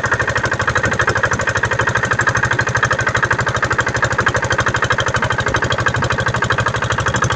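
Motorboat engine running steadily, with a fast, even knocking beat.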